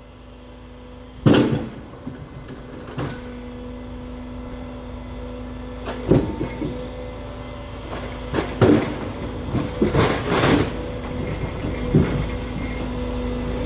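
Truck-mounted log loader with its engine running steadily, and red oak logs knocking and thudding as the grapple drops and sets them on the pile, about six times, the loudest just over a second in.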